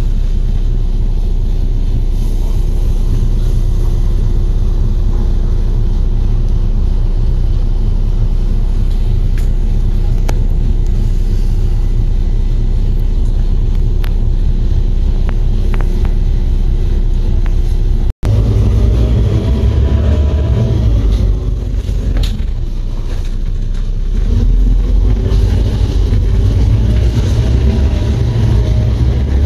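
Bus cabin rumble as the bus idles with a steady hum, then its engine speeds up with a rising and falling pitch, twice, as the bus pulls away. The sound cuts out for an instant just before it pulls away.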